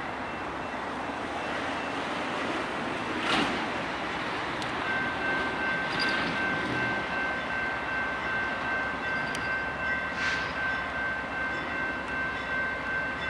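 Freight train rolling past with steady wheel-on-rail noise and a few sharp clanks. About five seconds in, a steady high-pitched squeal joins and holds.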